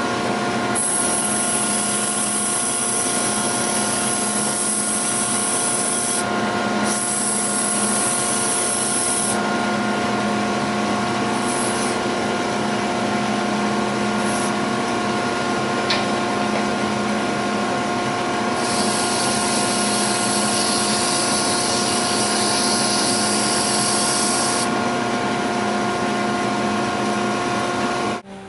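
Wood lathe and 3/4 horsepower wall-mounted dust collector running steadily with a constant motor hum, while sandpaper held against the spinning workpiece hisses in stretches, loudest for several seconds near the start and again about two-thirds of the way through. The sound cuts off abruptly near the end.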